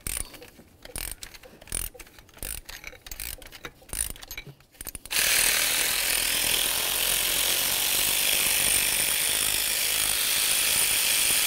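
Ratchet wrench loosening a bolt on an engine's intake area: irregular clicking strokes at first, then from about five seconds in a steady, continuous run of ratcheting.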